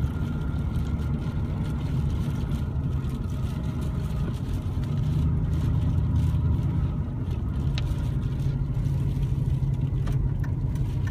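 A car driving: a steady low engine and road rumble that grows a little louder for a couple of seconds in the middle.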